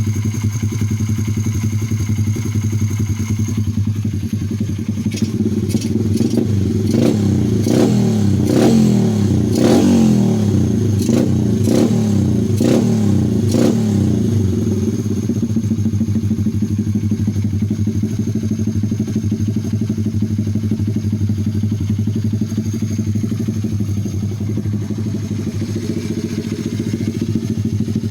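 A 125cc pit bike's single-cylinder four-stroke engine running to warm up. From about five to fourteen seconds in it is revved in a quick series of short throttle blips, each with a sharp crack, then settles back to a steady idle.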